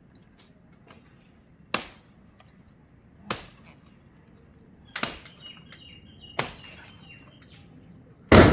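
Five sharp knocks, about a second and a half apart, the last one the loudest, with birds chirping between them.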